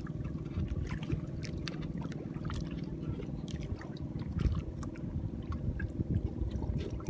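Choppy water lapping and splashing against the hull of a small boat, with many small irregular slaps over a steady low rumble.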